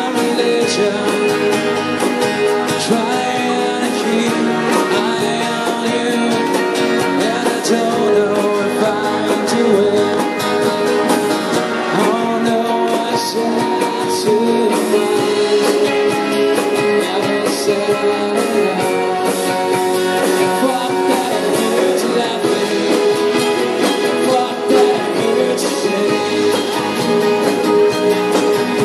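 A band playing with guitar to the fore, some singing in places.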